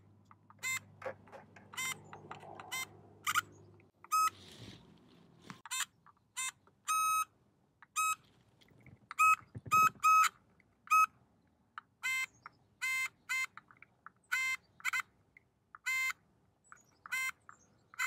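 A Power Probe II circuit tester beeping each time its tip touches a fuse terminal that has power: a long string of short, high beeps, often two in quick succession as both sides of a good fuse are checked.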